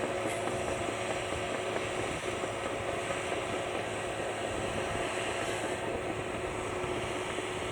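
Caterpillar D5N bulldozer's diesel engine running steadily, with a constant whine over its rumble.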